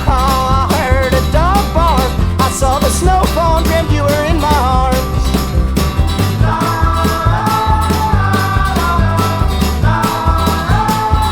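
Background music with a steady beat and a bass line, a melody line that bends at first and then settles into held chords from about six seconds in.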